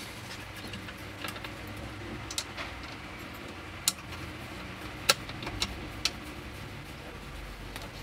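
A few sharp, scattered metallic clicks and taps as a safe lock's case and its M6 screws are fitted against the inside of a steel safe door, the loudest about five seconds in, over a low steady hum.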